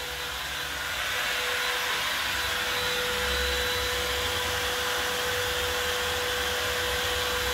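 Makita trim router on an MPCNC running steadily while its bit carves a wooden board: a constant whine with hiss, louder about a second in.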